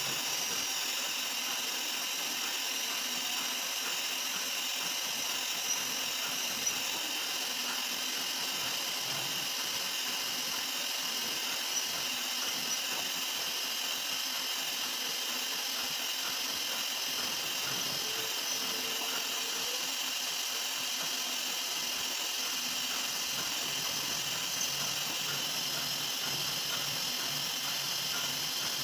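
CNC vertical milling machine running a drilling program: a steady high hiss and whine from the spindle and machine, with a few faint ticks.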